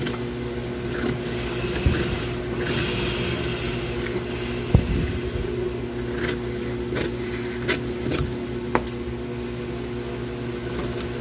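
Tailor's shears cutting through folded pattern paper, with scattered snips and paper rustles. A steady mechanical hum runs underneath.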